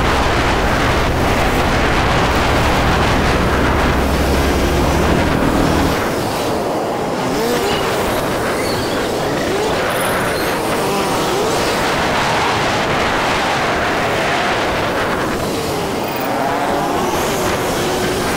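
Motorbike engine running and revving in traffic, with wind rush. A deep rumble for the first six seconds gives way to an engine pitch that rises and falls several times.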